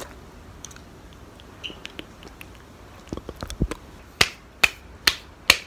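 Fingers snapping in a steady beat, about two snaps a second, beginning past the middle after a few faint clicks.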